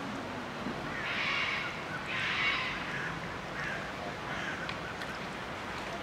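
A bird calls twice loudly and harshly, about a second apart, then gives a few fainter calls, over steady background noise.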